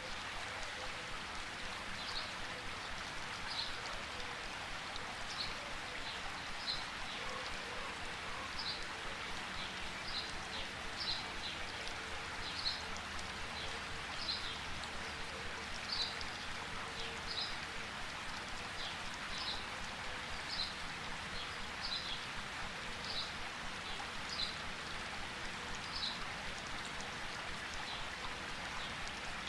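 Steady rainforest rain, an even hiss of falling drops, with a short high chirp repeating about once every second or so through most of it.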